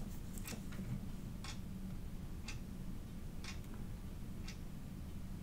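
A clock ticking once a second, sharp and even, over a faint steady low hum.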